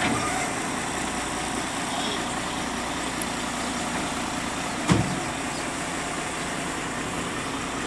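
Heavy diesel engine idling steadily, with a single sharp knock about five seconds in.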